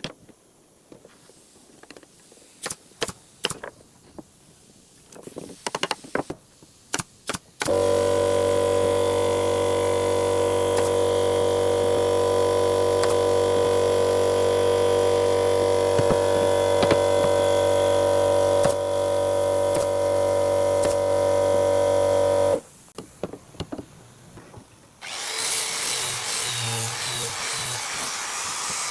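Woodworking sounds: scattered knocks and taps on wood, then an electric power tool's motor running at a steady pitch for about fifteen seconds. After it stops come a few more knocks, then a steady rough scraping hiss of a tool working the wood.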